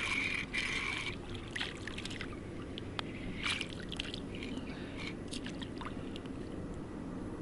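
River water lapping and sloshing at the bank, with a few small splashes and clicks scattered through. A steady high whine stops about a second in.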